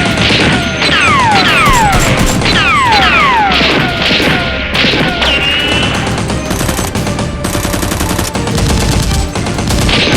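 Rapid gunfire sound effects with repeated falling whistling sweeps, over music.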